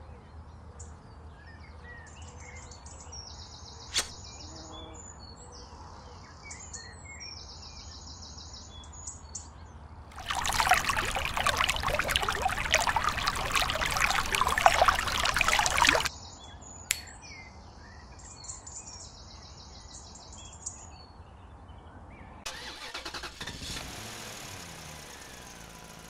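A small homemade toy-model motor runs with a loud, dense rushing buzz for about six seconds midway, and about three seconds before the end a small electric motor starts up with a steady whir as the toy tractor drives off.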